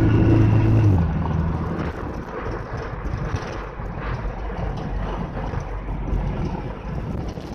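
Volvo car engine droning steadily under throttle, then dropping in pitch and easing off about a second in, leaving steady road and tyre noise as the car rolls on.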